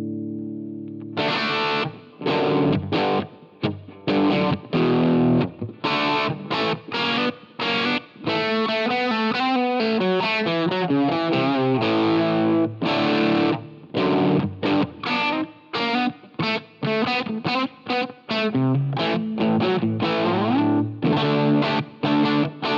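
Electric guitar played through an iSet Dumbler, a Dumble-style overdrive pedal with a mild crunchy drive. A held chord rings out and dies away, then about a second in come short choppy chords with stops, and a quick run of single notes in the middle.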